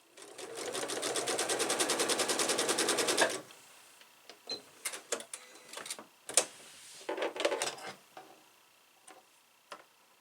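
Sewing machine stitching a seam in quilt piecing: it picks up speed, runs with rapid, even stitch strokes for about three seconds, then stops. Light clicks and handling taps follow.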